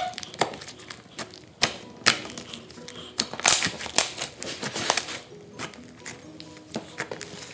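Butter slime, glue slime mixed with soft clay, being kneaded and squeezed by hand, giving off irregular sticky clicks and pops.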